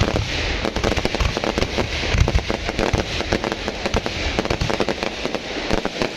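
Fireworks display: many shells bursting close overhead, a dense run of rapid crackling pops and bangs with no gaps, the heaviest bangs about two seconds in.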